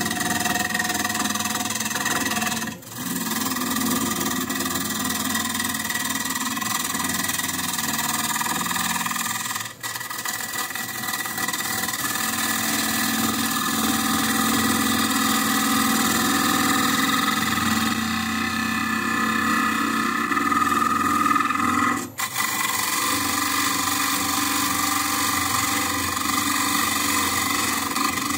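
Wood lathe spinning a walnut bowl while a bowl gouge cuts the inside, a steady shaving and rushing noise over the lathe's running. The noise breaks off sharply three times, about 3, 10 and 22 seconds in.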